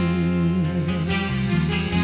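Instrumental band music with a wavering lead melody over sustained chords and bass, and no singing.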